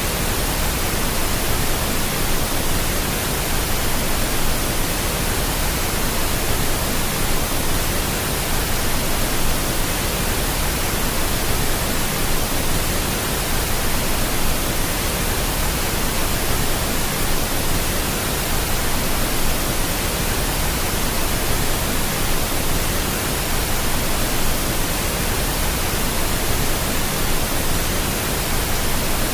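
Steady pink noise: an even, unchanging hiss spread across all pitches, fuller in the low end than white noise.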